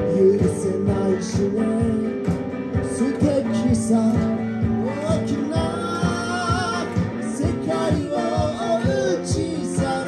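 Live acoustic band music: a semi-acoustic guitar strummed in a steady rhythm under a flute melody.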